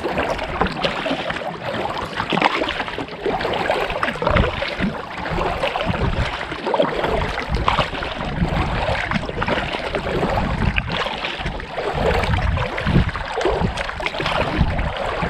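Kayak paddle strokes splashing and choppy water slapping against a plastic sit-on-top kayak's hull, with wind buffeting the microphone in irregular low rumbles.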